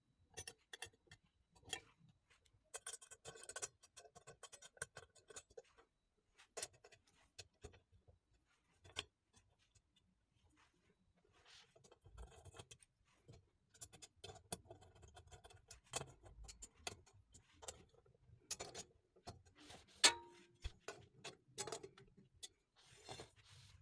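Scattered light clicks, taps and brief scraping of metal bar cart parts and hardware being handled during assembly, with one sharper clink that rings briefly about twenty seconds in.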